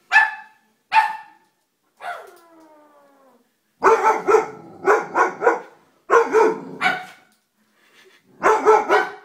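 Doberman pinscher barking: two single barks, then a drawn-out whine that falls in pitch, then three quick runs of several barks each.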